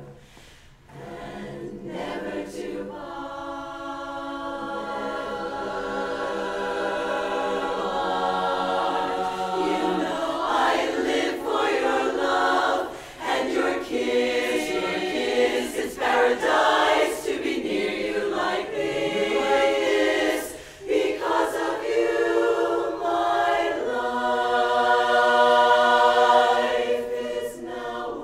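Women's chorus singing a cappella in close harmony: a soft held chord swells, then fuller, louder phrases follow with short breaks between them.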